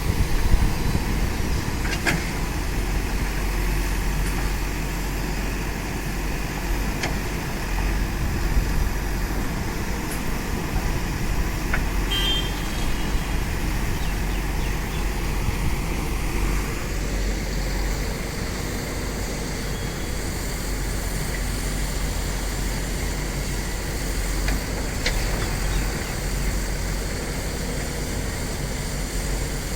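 JCB backhoe loader's diesel engine running steadily as the machine works, with a few short sharp knocks.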